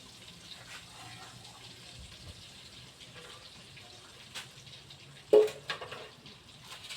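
Yam pieces sizzling in hot frying oil, a faint steady hiss. About five and a half seconds in comes a sharp metallic clink, like a utensil striking the pan, after a smaller click just before it.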